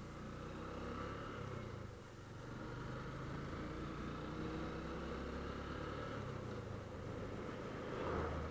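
Motorcycle engine running as the bike rides along at low speed, with a short dip in the engine note about two seconds in. Near the end a car passes close by, briefly louder.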